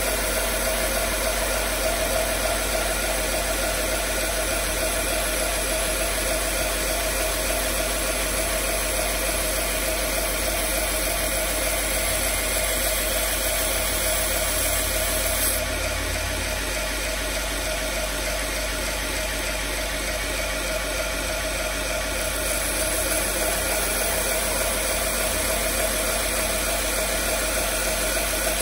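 Belt grinder with a 120-grit belt running steadily: an even motor hum and belt hiss, the high hiss easing off for several seconds in the middle.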